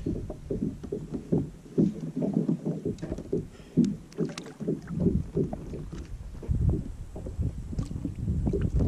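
Water splashing and knocking against a fishing kayak, with irregular low thumps and bumps.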